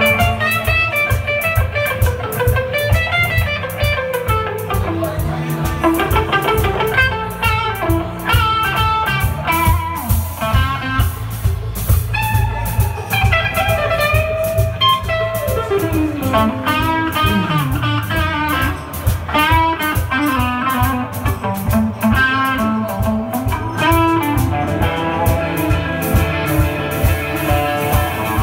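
Live blues band playing an instrumental passage: an electric guitar lead with bent notes over a steady bass and drum-kit groove, with a long slide down in pitch a little past halfway.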